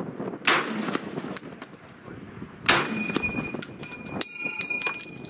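Small metal clips being handled: two sharp snapping clicks, about half a second and nearly three seconds in, over a rustle of handling, then a run of light, high, ringing metallic clinks.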